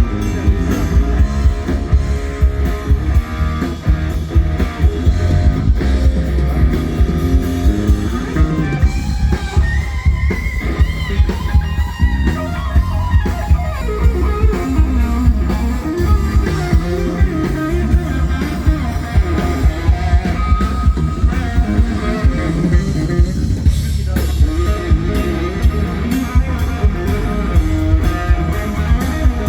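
Live rock band playing a pop-rock song during a soundcheck: a steady drum-kit beat under bass, electric guitar and keyboards.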